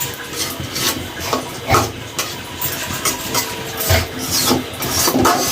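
A metal spoon knocks and scrapes in a kadai of simmering chicken curry several times, over a steady low rumble.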